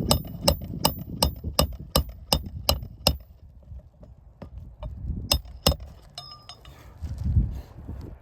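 Hammer blows during a shingle roof repair: a quick run of about ten sharp, ringing metallic strikes, roughly three a second, then two more a couple of seconds later.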